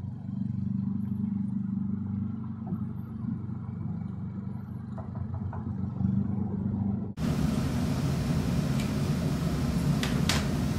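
A steady low mechanical rumble with a hum in it. About seven seconds in it changes abruptly to a rougher, noisier rumble, with a few sharp clicks near the end.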